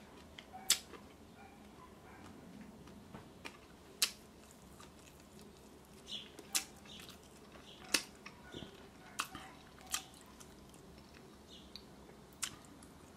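A person chewing a mouthful of Beyond Burger on a pretzel bun, mouth closed, with faint irregular wet clicks and smacks every second or two.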